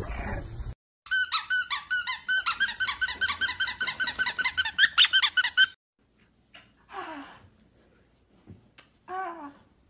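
A fast, even run of high-pitched squeaks, about five a second, lasting about four and a half seconds and then stopping abruptly.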